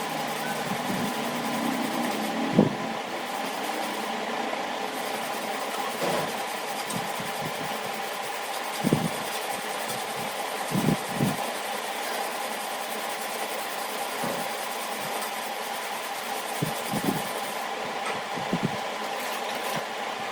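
A small electric motor running steadily with an even whine, with a few short dull knocks over it.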